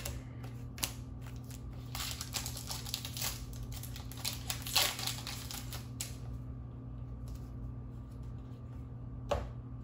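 A foil trading-card booster pack being torn open and crinkled by hand, crackling for a few seconds, then softer sliding and clicking of cards being handled. A steady low hum runs underneath.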